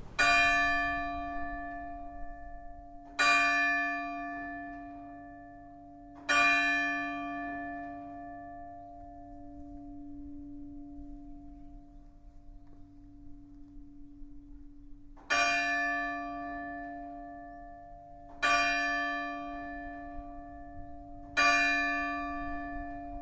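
A single church bell, struck by a timer-driven mechanism, rings six strokes in two groups of three about three seconds apart, with a pause of about nine seconds between the groups. Each stroke rings on with a long, slowly fading hum.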